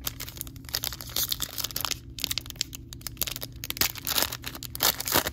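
A trading-card pack's wrapper crinkling and tearing as it is opened by hand: a dense, irregular crackling that runs on for several seconds.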